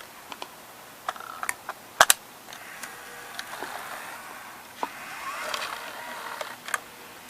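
An 8mm video cassette being loaded into an opened Sony CCD-TR70 camcorder: small plastic clicks, two sharp clicks close together about two seconds in, then the tape-loading mechanism's small motor and gears whirring, with a few more clicks.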